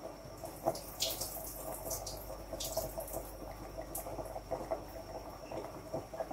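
Marinade draining from pickled onions into a kitchen sink: liquid trickling and dripping, with a few short sharp splashes or clinks about one, three and four seconds in.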